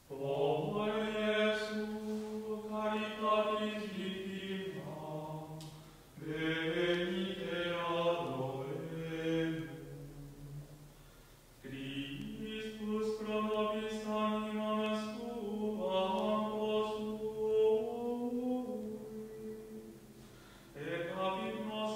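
Slow liturgical chant sung in long held notes, in several phrases with brief breaks between them.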